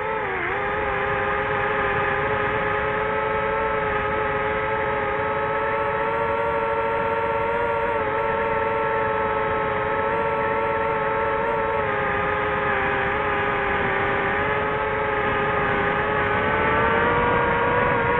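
DJI FPV drone's motors and propellers whining in flight, the pitch dropping just at the start and then holding steady.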